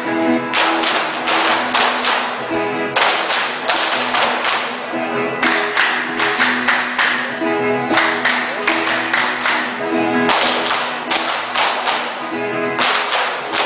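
Viola caipira ensemble playing a strummed instrumental passage: held chords under clusters of sharp, rhythmic strokes.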